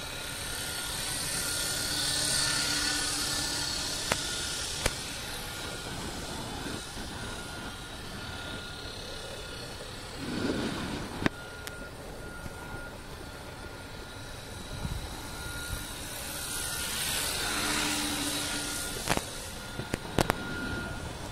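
Radio-controlled model helicopter flying, its rotor hiss swelling and fading as it moves nearer and farther, loudest twice. A steady thin tone runs under it, and a few sharp clicks stand out.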